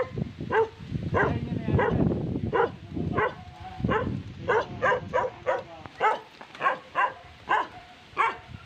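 Small dog barking over and over, about two short barks a second. Under the first few barks, the hand truck's wheels rumble over concrete.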